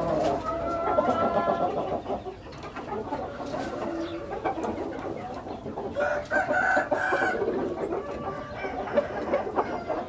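Roosters crowing: one drawn-out crow about a second in and another around six seconds in, with shorter chicken calls between.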